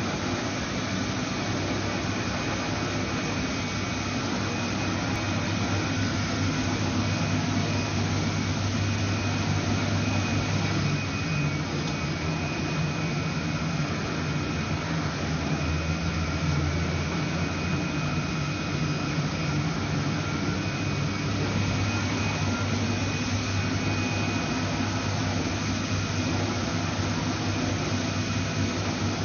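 Large flatbed printer running as its print-head carriage prints: a steady mechanical hum with a low drone and a faint high whine.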